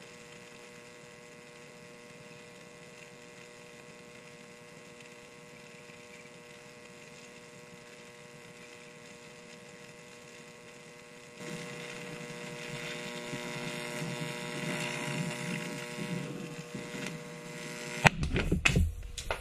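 A 15,000-volt arc buzzing on the terminal of an AA-size lithium battery, with a steady mains hum. About eleven seconds in, a louder hiss sets in as the overheated cell starts venting. Near the end there is a sharp bang and a few cracks as the battery bursts in a cloud of smoke.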